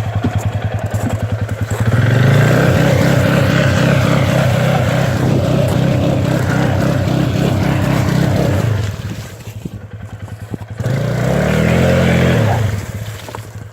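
Arctic Cat 450 ATV's single-cylinder engine revving under throttle, held high for several seconds, dropping back to idle, then revved again briefly near the end.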